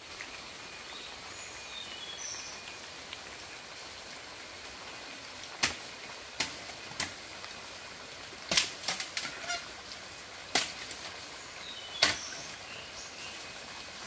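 A series of sharp knocks or snaps, about a dozen, starting about five and a half seconds in with a quick cluster near the middle, over a steady outdoor hiss with faint bird chirps.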